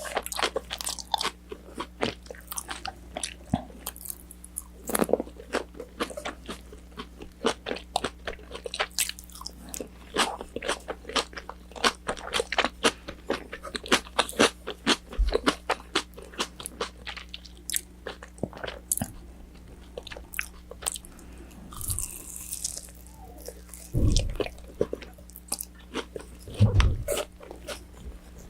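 Close-miked crunching and chewing of crispy battered fried chicken (orange chicken), many sharp crunches in quick succession, with a few heavier bites near the end.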